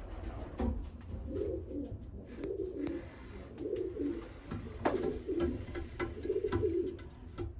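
Racing pigeons cooing again and again in low, throaty calls, with scattered sharp clicks and taps among them.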